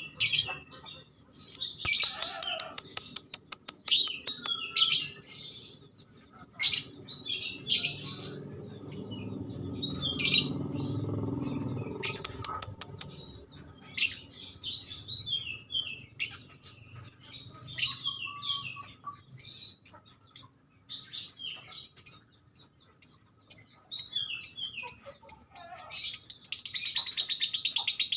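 Young captive-bred songbird singing a varied song of sharp chirps, whistled phrases, rapid clicking runs and falling note series, with a fast trill near the end. The bird has begun singing its full adult voice. A low hum swells and fades about ten seconds in.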